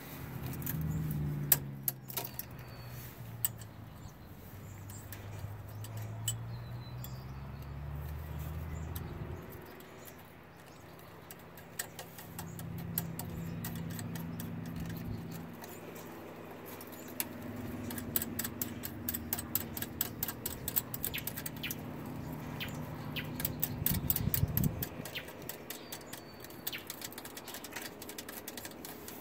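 Small metallic clicks and rattles from hands handling hose clamps and fittings around a diesel engine's turbo. The clicks get much busier in the second half, over a low rumble that swells and fades several times.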